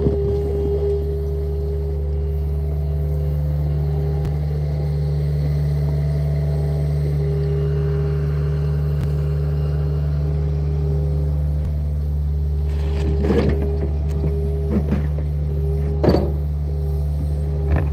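John Deere compact excavator's diesel engine running steadily under working load, with a steady hydraulic whine over the engine hum as the boom swings and the bucket digs. A few short knocks and scrapes of the bucket on dirt and rock come near the end.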